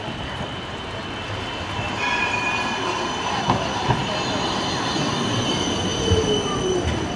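Tram running past close by on street rails, its wheels squealing with steady high tones from about two seconds in. Two knocks come about three and a half seconds in, and a low whine falls steadily in pitch near the end.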